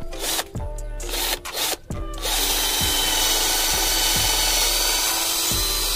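Izom 20V cordless drill on speed setting 2 boring a 5 mm bit into bamboo. The drill starts about two seconds in and runs steadily, a whine with the rasp of the bit cutting the wood. Background music with a beat plays underneath.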